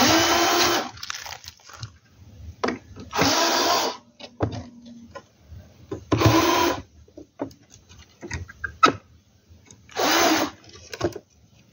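Cordless drill-driver backing out the screws of a power amplifier's case lid: four short whirring runs of about a second each, with small clicks and knocks of handling in between.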